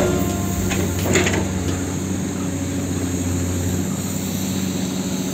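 Hydraulic excavator's diesel engine running steadily, with a sharp knock at the start and another about a second in.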